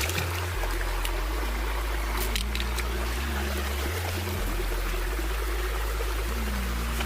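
Water running steadily with a continuous trickling, stream-like rush, over a low bass line of background music.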